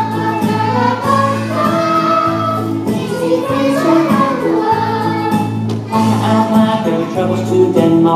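A song with backing music and young children singing.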